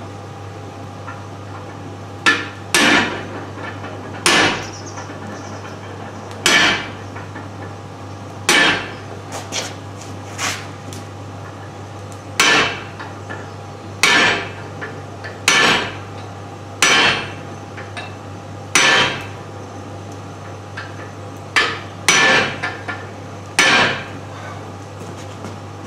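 Hammer blows on stainless steel while forging the face of a crucifix figure, single sharp strikes at an uneven pace of about one every one to two seconds, with a steady low hum underneath.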